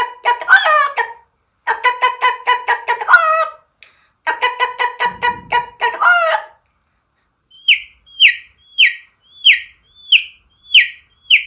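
A person imitating a hen with her chicks, by voice. First come quick pulsing runs of clucking, then, in the second half, about eight short high peeps, each falling in pitch, roughly one and a half a second, like chicks.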